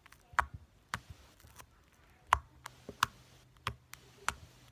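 Homemade slime being handled, squeezed and stretched in the hands, giving irregular sharp clicks and pops.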